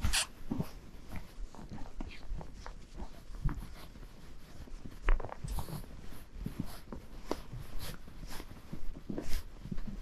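A horse walking through snow, its hooves crunching and thudding at an uneven walking pace. The horse itself makes a few louder sounds: near the start, about halfway and near the end.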